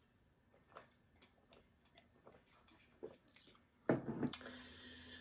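Faint clicking gulps as someone drinks from a glass. About four seconds in, the glass is set down on a table with two sharp knocks, followed by a soft hiss.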